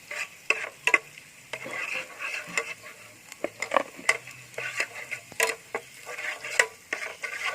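Kitchen sounds of cooking: a utensil clinking, tapping and scraping against a pan or bowl at an irregular pace, over a faint sizzle.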